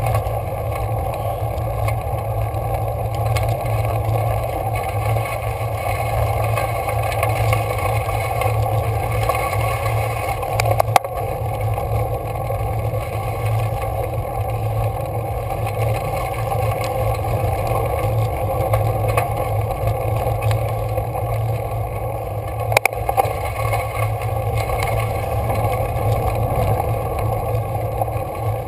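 Steady wind and road noise from a road bike climbing a rough gravelly road. Two sharp knocks come through, about a third of the way in and again about three quarters of the way in.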